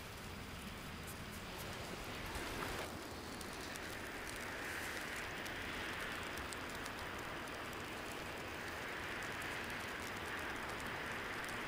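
Blizzard ambience: a steady rushing hiss of wind and driven snow that swells twice, with faint fine ticks throughout.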